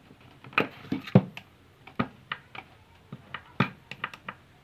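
Irregular sharp clicks and knocks, about ten of them, the loudest a little over a second in, from a simple hand tool working on a car horn as it is taken apart.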